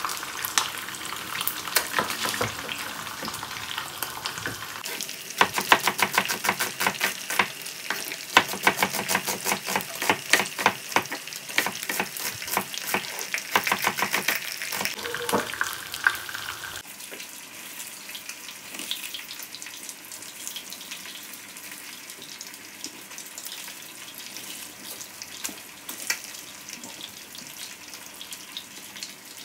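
Food frying in hot oil in a pan, sizzling steadily. For about the first half it is stirred, with rapid clicking and scraping against the pan, then it is left to sizzle more quietly.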